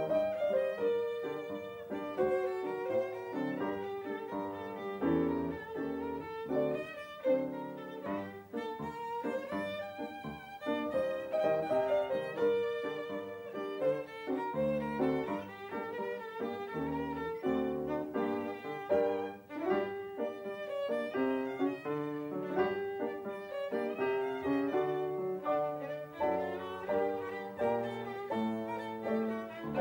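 Film accompaniment music, led by a violin playing a melody of short, quickly changing notes.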